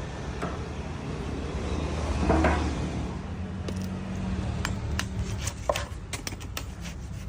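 A run of sharp knocks and clinks of hard objects being handled and struck, about a dozen in the last few seconds, after a brief swell of rustling noise about two seconds in. A steady low hum runs underneath.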